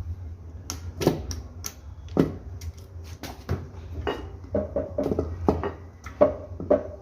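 Small steel parts and hand tools clicking and clinking irregularly while valve springs and their keepers are fitted to the cylinder head, over a steady low hum.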